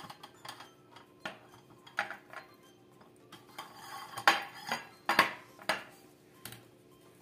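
Metal muffin tins clanking and knocking against each other and a wire cooling rack as baked tarts are lifted out and the tins are moved aside. The knocks come irregularly, with the loudest clanks about four to six seconds in.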